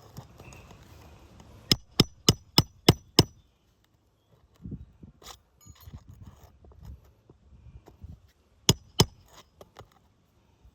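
Hammer blows, likely driving a roofing nail: six quick strikes about a third of a second apart, then two more near the end, with quieter scraping and rustling in between.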